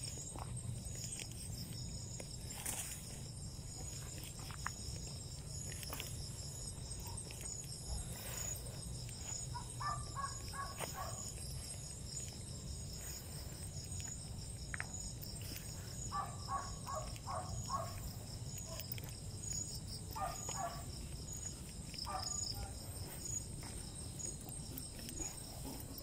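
Night-time insect chorus: crickets trilling steadily in high, finely pulsing tones. A few times an animal gives a short run of four or five quick, clipped calls over it, and a low steady rumble runs underneath.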